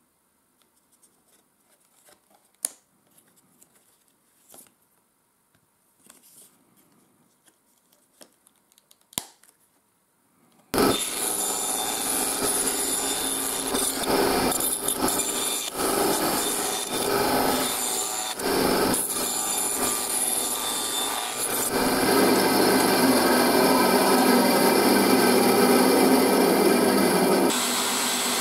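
Faint handling of a leather knife sheath with a few sharp clicks, then a benchtop band saw starts suddenly and runs steadily, growing louder partway through. Near the end the sound changes to a motor-driven felt buffing wheel.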